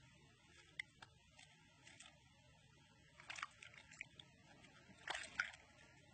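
Faint water splashes from a large fish thrashing in shallow water: a short burst about three seconds in and another, louder one about five seconds in.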